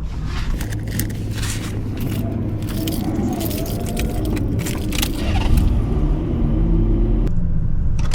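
Car running, heard from inside the cabin: a steady low engine and road rumble with scattered clicks and rattles.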